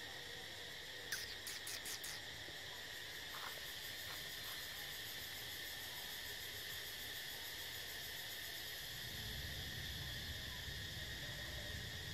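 Steady, high, shrill insect chorus from the forest canopy, with a few quick clicks about a second in and a low rumble joining near the end.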